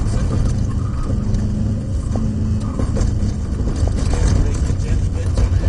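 Subaru Impreza WRX Group N rally car's turbocharged flat-four engine running under way, heard inside the cabin, with steady road and tyre rumble and a few short clicks.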